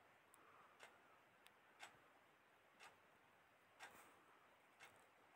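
Near silence: faint room tone with a soft tick about once a second, a clock ticking steadily.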